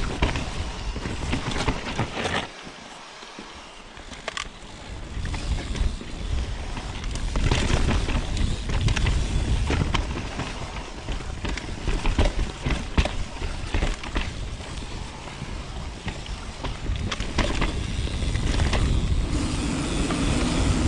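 Mountain bike ridden fast down a dirt trail, heard from a camera on the rider or bike. Wind rumbles on the microphone, and the bike clatters and knocks over rough ground. It goes briefly quieter about three seconds in.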